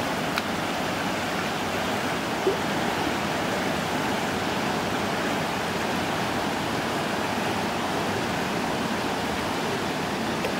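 Fast mountain river rushing over boulders and rapids: a steady, even roar of white water with a strong current.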